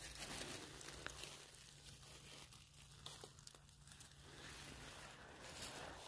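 Faint rustling and crunching of footsteps on dry leaves and shell fragments, over a faint steady low hum.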